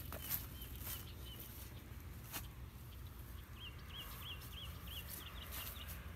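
A few scattered footsteps over a low, steady rumble, with a bird chirping short, high, repeated notes: a few near the start, then a quicker run of about nine in the second half.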